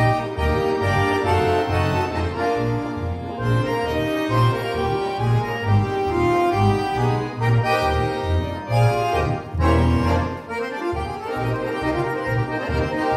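Accordion quintet playing live: sustained chords and melody over a low bass line that moves in short, regular notes.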